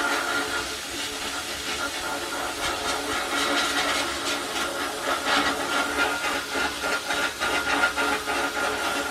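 Shot blast cabinet's air blast gun hissing as grit is fired at a rusty rear brake drum. The hiss swells and dips in quick uneven pulses.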